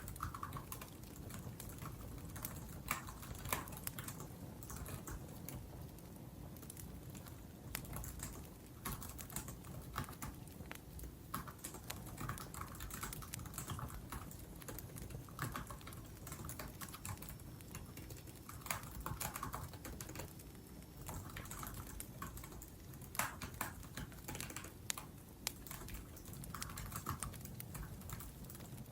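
Typing on a laptop keyboard in irregular runs of key clicks, over the low, steady sound of a wood fire with occasional crackles.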